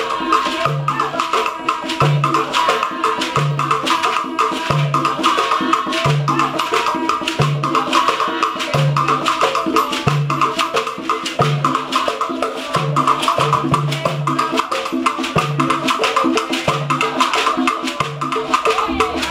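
Live Afro-Cuban percussion ensemble: hand drums played on the lap and sticks clacking on wood in a fast interlocking rhythm, over a deep drum note that repeats about every second and a third.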